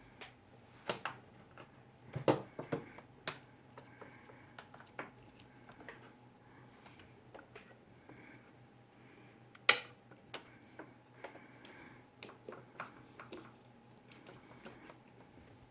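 Scattered clicks and light knocks of small hard parts being handled, with a sharp cluster about two seconds in and one loud click near the middle, over a faint steady low hum.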